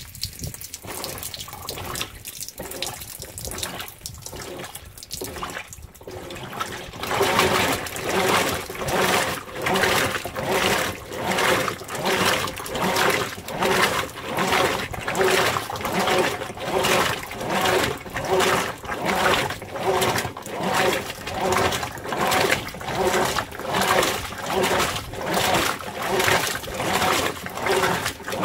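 Whirlpool Cabrio top-load washer washing a load in deep water. After a quieter stretch with water trickling, about seven seconds in it starts agitating: the wash plate swishes the clothes back and forth about once a second, each stroke a motor hum with water sloshing.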